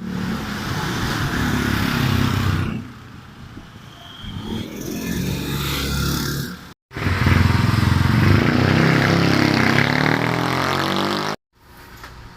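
A motor engine running loudly, cut off abruptly twice.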